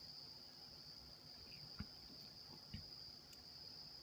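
Crickets chirping as a faint, steady high-pitched trill, with two faint light clicks about two and three seconds in.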